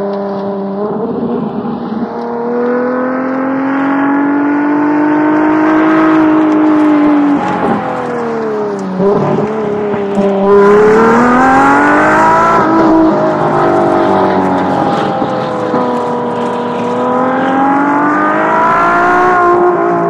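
2014 LaFerrari's V12 engine running under way, its pitch climbing and falling several times as it speeds up and eases off, dropping lowest about eight seconds in before rising sharply again.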